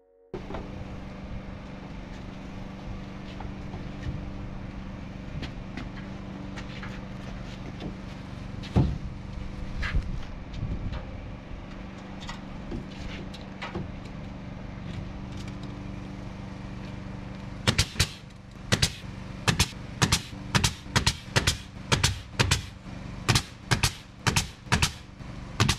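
Pneumatic nail gun shooting nails into wooden siding: a few scattered shots, then from about two-thirds of the way through a fast run of shots, two or three a second. An engine-driven machine runs steadily underneath.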